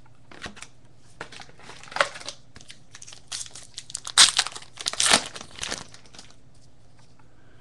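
Foil trading-card pack wrapper being torn open and crinkled by hand, in irregular crackling bursts, loudest about four to five seconds in.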